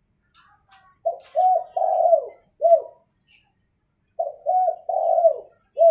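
Spotted dove cooing: two phrases of about four coos each, the third coo in each phrase the longest, with a pause of about a second between the phrases.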